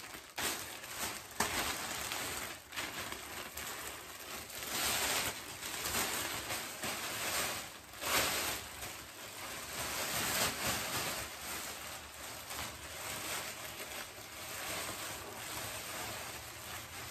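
Thin plastic rain poncho rustling and crinkling as it is unfolded and pulled on over the head, an irregular crackle throughout.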